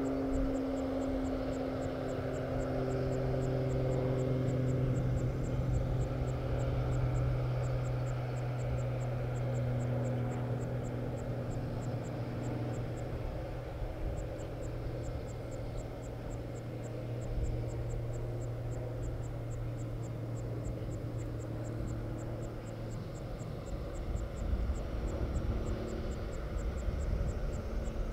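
Steady low drone of machinery on an airport apron around a parked airliner, with a few steady hum tones; the strongest hum fades out near the end. A faint, rapid, regular high ticking runs over it.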